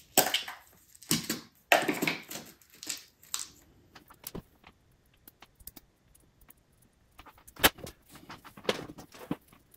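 Light clicks, taps and short scrapes of small model-locomotive gear parts being handled and picked clean with a toothpick, scattered and irregular, sparser in the middle.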